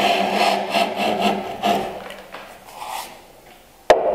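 Iron miter plane taking short strokes across a board's end grain in a miter jack: a quick run of rasping shaving strokes, about two or three a second, that fades after about two seconds, then a single sharp knock near the end.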